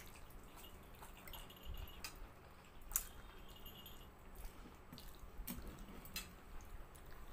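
Faint wet slurping and chewing as two people eat spicy Korean instant noodles, with a few short clicks scattered through, the sharpest about three seconds in.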